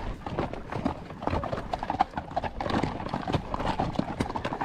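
Horse's hooves clopping on a steep downhill trail, an uneven run of careful steps.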